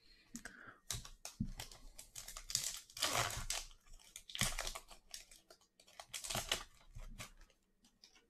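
Foil trading-card pack being torn open and crinkled by hand: a run of irregular crackling rustles, loudest about three seconds in.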